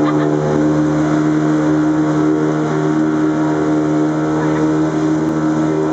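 Outboard motor of a motorized river canoe running steadily at cruising speed, a constant even drone.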